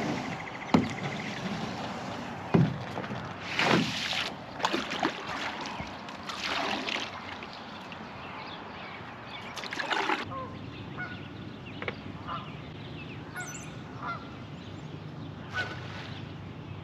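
Geese honking: a series of loud calls spaced a few seconds apart, the strongest about four seconds in and again around ten seconds in.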